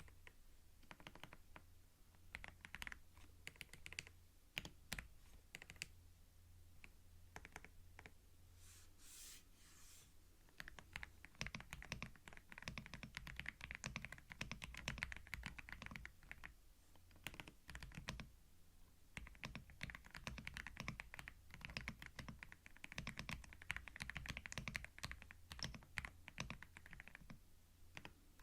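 Computer keyboard typing: scattered keystrokes at first, then fast, continuous typing from about eleven seconds in. A brief soft hiss comes around nine seconds in.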